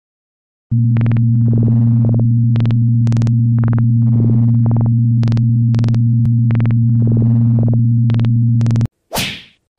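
A cat purring loudly and steadily, close to the microphone, with soft swells every few seconds as it breathes; it stops abruptly near the end and a short rushing whoosh follows.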